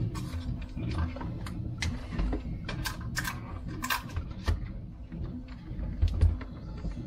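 Hands working plastic RC car parts: a LiPo battery, its plug and wires, and the battery cover. Irregular plastic clicks, taps and knocks with rustling, a few sharper clacks about three and four seconds in.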